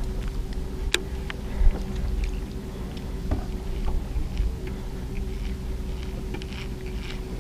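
Boat motor running steadily at trolling speed, a constant low hum, with a few light clicks and knocks over it, the sharpest about a second in.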